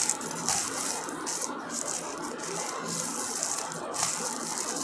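White plastic wrapping crinkling and rustling as a small device is pulled out of it, an irregular crackle with no pauses.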